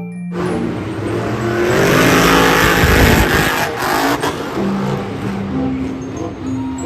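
Race car passing by, its engine noise building to a peak about three seconds in and then fading, with the pitch gliding as it goes past.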